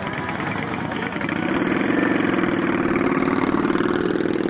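Cruiser motorcycle engine running at low speed as a bike rolls slowly past through a parking lot. The steady, pulsing engine sound gets louder about a second in and stays loud.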